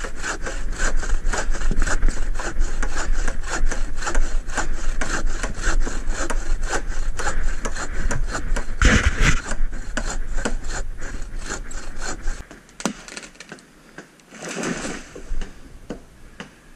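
Hand bow saw cutting through a green sapling trunk in quick, rhythmic back-and-forth strokes, which stop about twelve seconds in. A brief rustle follows near the end.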